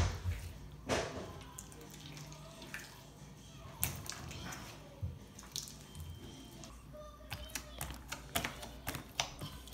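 Pink borax-and-glue slime being kneaded and pressed by hand on a wooden table: wet squelching with sticky smacks. There is a hard thump at the start and another about a second in, and the smacks come more often near the end.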